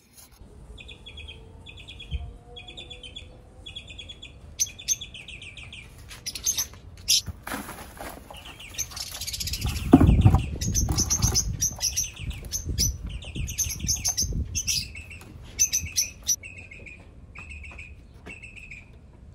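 Small birds chirping in short trilled phrases, repeated again and again. About halfway through, a plastic pot knocks and scrapes with rustling soil as it is handled, the loudest sound.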